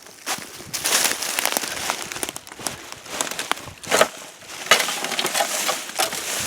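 Dry brush and twigs crunching and snapping underfoot in a run of irregular crackling steps, louder snaps about a second in and again around four seconds in.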